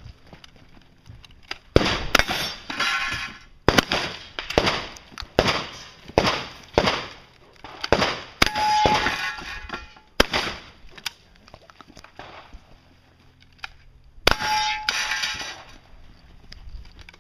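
A side-by-side double-barrel shotgun fired again and again at steel targets: sharp shots about a second apart, several followed by the ring of struck steel. After a pause comes one last shot and ring about two-thirds of the way through.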